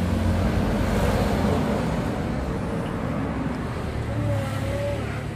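A motor vehicle passing by: a low engine rumble under a broad hiss that swells about a second in and then slowly fades.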